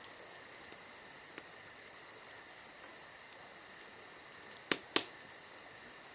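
Faint, steady high-pitched insect chirring that pulses rapidly, with two sharp clicks close together about three-quarters of the way through.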